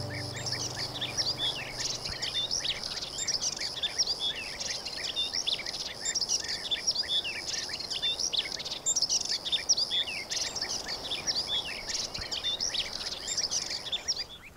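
European bee-eaters calling: many short chirps overlapping continuously, over a steady high hiss.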